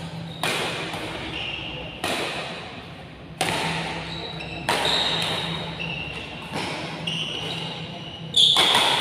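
Badminton rackets hitting a feathered shuttlecock back and forth in a rally: about six sharp hits, one every one and a half seconds or so, each echoing off the hall, the hardest hit coming near the end.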